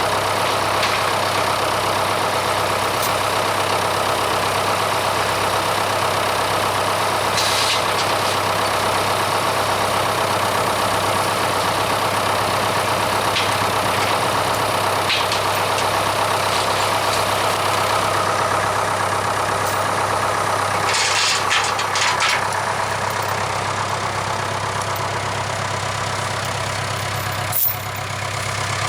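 Case 580K backhoe's engine running steadily, with a few short clanks partway through.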